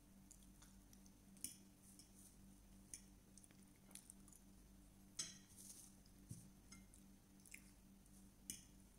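Faint wet eating sounds of spaghetti carbonara being slurped and chewed, with short sharp smacks every second or so, the loudest about five seconds in. A steady low hum runs underneath.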